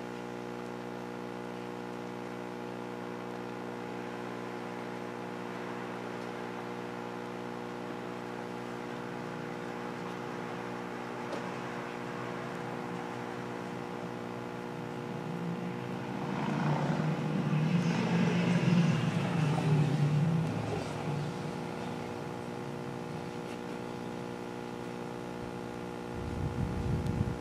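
A steady hum made of several held tones, with a louder, rougher rush of sound over it for a few seconds midway and again near the end.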